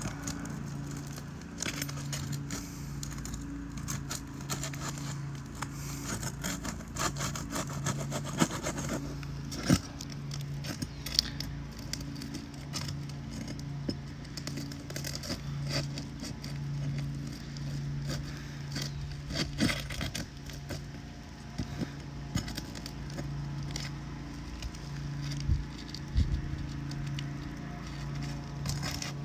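Asphalt roof shingles being worked loose with hand tools: irregular scraping, crackling and sharp clicks as the sealant strips are broken and the shingles are pried up. A low hum that swells and fades every second or so runs underneath.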